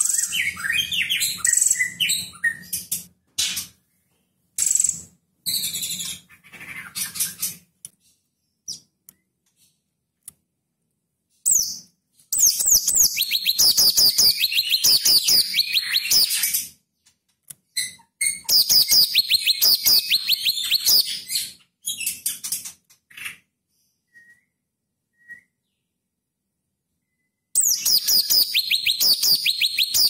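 Cucak cungkok (leafbird) singing in loud bursts of rapid, repeated high downward-sweeping notes, with shorter phrases and pauses of a few seconds between the bursts. The fast strings are the rapid-fire 'tembakan' phrases prized by Indonesian songbird keepers.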